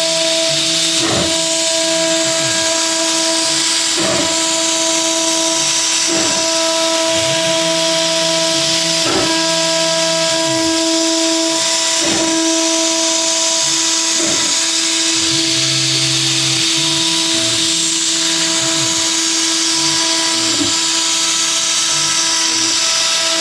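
CNC router spindle whining at a steady high pitch while milling aluminum, over a constant cutting hiss, with short sweeps in the sound every second or few as the cutter changes direction along its path.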